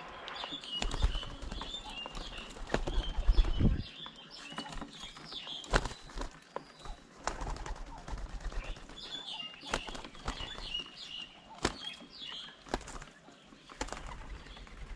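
Birds at a feeding table: wings flapping, with a loud low flutter in the first few seconds, sharp knocks scattered throughout, and repeated high chirping calls.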